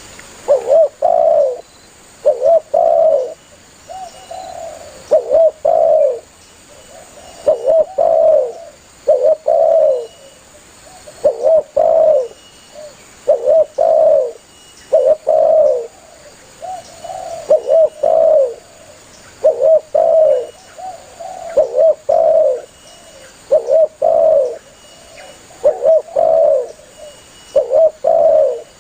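Spotted dove (tekukur) cooing over and over, a steady rhythm of short low multi-note coo phrases about every two seconds.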